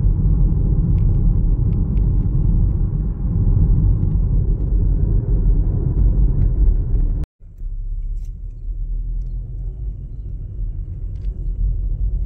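Steady low rumble of a car driving, heard from inside the cabin. It cuts off abruptly a little past the middle and comes back quieter.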